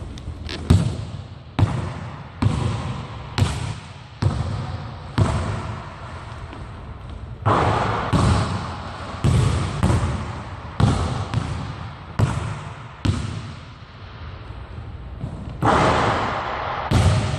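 Basketball being dribbled on a hardwood gym floor, sharp bounces about once a second ringing through the hall, with two longer noisy bursts around halfway and near the end.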